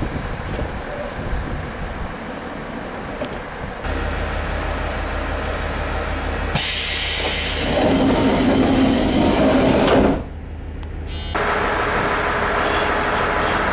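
JR East KiHa 40 series diesel railcar engine and running noise. A steady low hum comes in about four seconds in, and a louder hissing rush joins at about six and a half seconds. The sound drops away suddenly just after ten seconds, and the running noise returns about a second later.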